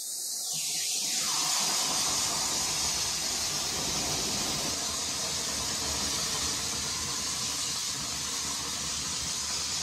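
Dry ice blasting gun hissing steadily as it shoots a jet of compressed air and dry ice onto car floor carpet, growing fuller about a second in.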